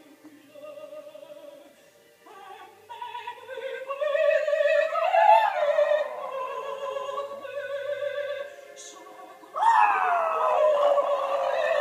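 Opera singing playing on a TV, with a dog howling along. The loudest howl starts suddenly near the end and slides down in pitch.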